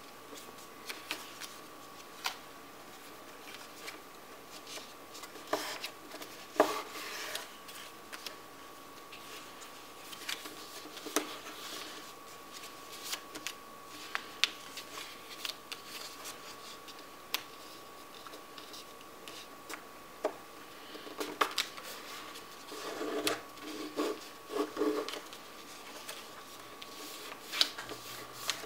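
A sheet of origami paper being folded by hand on a tabletop: rustling and sharp crackles of the paper as fingers press and rub along the creases. The crackles are scattered, with a dense run of rustling a little past the two-thirds point.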